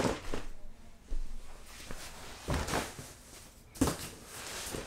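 Handling noise from a cardboard shipping box: about four short rustles and knocks as it is picked up and moved about.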